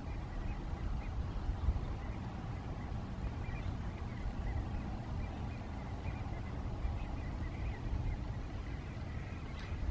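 Wind buffeting the microphone, a steady low rumble, with faint high chirps scattered through it.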